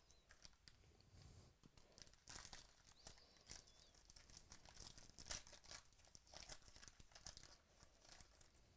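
Faint crinkling and tearing of a foil trading-card pack wrapper being ripped open by hand, in quick irregular crackles that start about two seconds in and thin out near the end.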